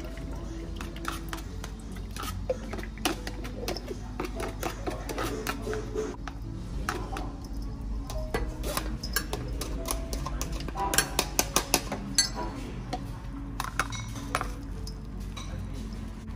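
Scattered clinks and knocks of kitchen utensils and dishes at a counter, with a quick run of sharp clicks about eleven seconds in, over background music and a steady low hum.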